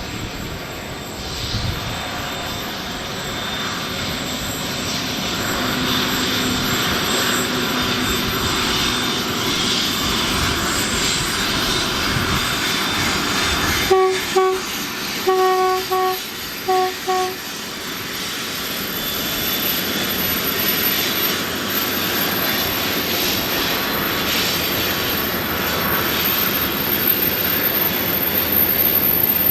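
Freight train running past with a steady rumble and wheel noise. About halfway through, its horn sounds: a longer blast followed by three or four short ones.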